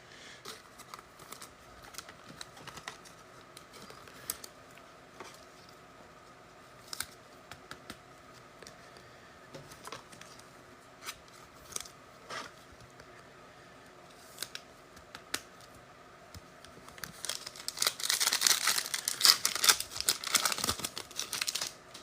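Trading cards and packs being handled: scattered soft clicks and flicks as cards are slid and sorted. About 17 seconds in comes a louder stretch of crinkling and tearing as a card pack's wrapper is torn open.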